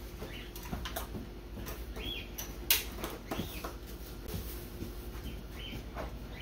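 Light crackles and clicks of thin plastic laminating film and a balsa wing being handled as the film is ironed down, one sharp crack about two and a half seconds in. Short bird chirps come now and then in the background.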